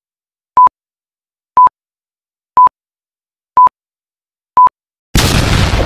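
Short, high electronic beeps, evenly spaced one a second, five of them, then a sudden loud burst of noise about five seconds in that begins to fade: a channel-intro sound effect.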